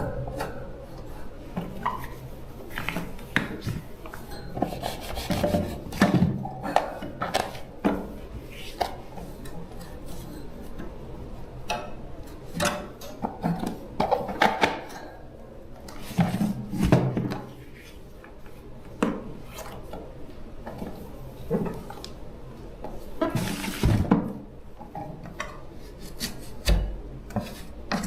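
Hand work on metal parts: irregular knocks, clinks and scraping, with rasping rubs between them.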